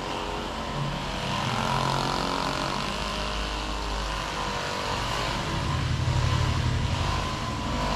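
Handheld electric vibrating massager running steadily as it is pressed into the shoulders, a buzzing hum whose note shifts a couple of times as the pressure changes.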